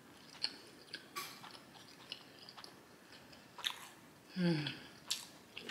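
Close-miked mouth sounds of a person chewing food, with soft wet clicks and lip smacks. A short voice sound with falling pitch comes about four and a half seconds in.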